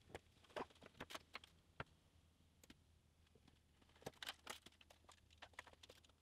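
Faint light clicks and taps of bar clamps and plywood strips being handled on a workbench, in small clusters around the first two seconds and again from about four seconds in, over a low hum.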